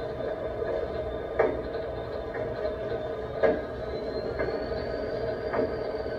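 EMD GP35 diesel locomotive's turbocharged 16-cylinder engine running steadily, heard from aboard the moving locomotive as it rolls slowly forward. A sharp knock comes about every two seconds as the wheels pass over rail joints, with a thin high whine that rises slightly partway through.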